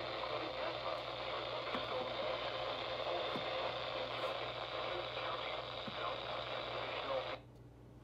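Weather radio receiver's speaker putting out a weak NOAA Weather Radio broadcast, mostly static hiss, a sign that the signal is fading. The static cuts off abruptly near the end.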